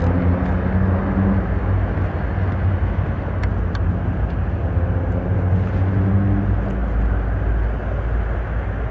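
Motorboat engine running, a steady low drone whose pitch shifts a little partway through.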